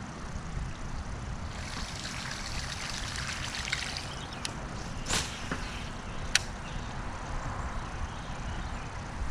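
Water trickling and splashing, with a few sharp clicks near the middle, over a low steady rumble.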